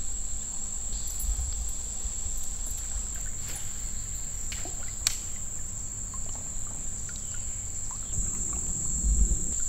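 Summer insects droning in one steady, high-pitched chorus. A single sharp click sounds about five seconds in, and a low rumble rises near the end.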